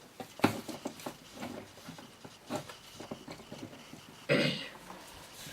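Plastic action figures being handled and set down: a sharp click about half a second in, then scattered lighter clicks and taps, and a short noisy burst about four seconds in.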